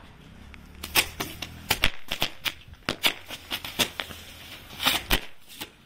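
A string of colour-smoke firecrackers going off: an irregular rapid series of sharp pops, a couple of dozen in about five seconds, starting about a second in.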